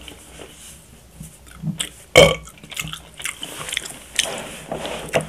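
A man burps once, loud and short, about two seconds in, with small mouth clicks around it.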